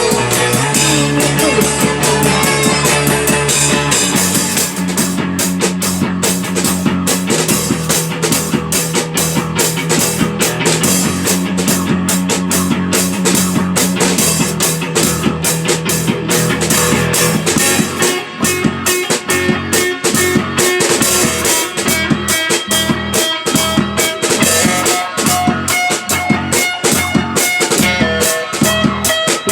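Rock band playing an instrumental psychedelic-rock piece: electric guitar over held bass notes and a drum kit. The drumming gets busier about halfway through.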